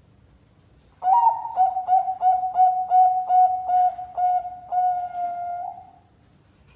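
Zebra dove (Thai-bred perkutut Bangkok) cooing, starting about a second in. It gives one phrase of about ten quick, clipped coos on one pitch, ending in a longer drawn-out note.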